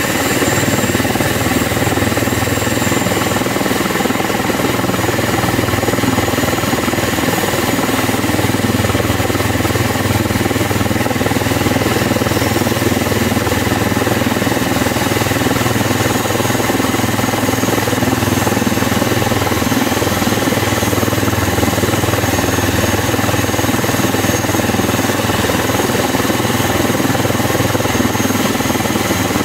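Airbus H145 rescue helicopter running on the ground with its main rotor turning, warming up ahead of take-off: a loud, steady engine and rotor noise with a high steady turbine whine.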